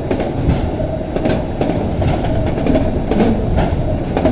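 CN freight train rumbling as it moves away, with scattered irregular clicks.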